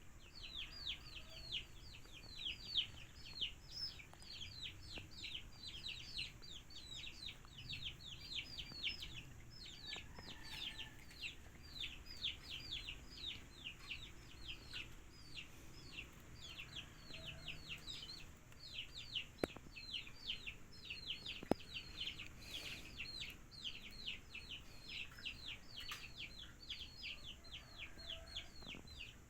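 A bird peeping without pause: short, falling high-pitched notes, about four a second.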